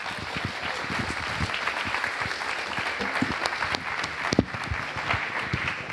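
Audience applauding steadily, many hands clapping together at the end of a talk.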